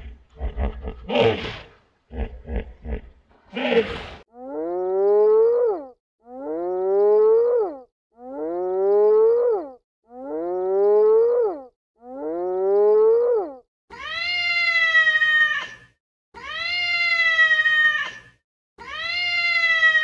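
A run of animal calls: rough grunts and snorts for the first few seconds, then five identical rising calls about two seconds apart, then long high meow-like wails that sag slightly in pitch.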